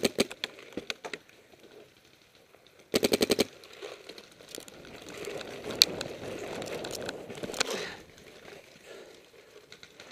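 Paintball marker, a Planet Eclipse Geo2, firing a very rapid burst of about ten shots in half a second about three seconds in, after a few single shots at the start. This is followed by a few seconds of rustling and scuffing as the player moves over the dirt.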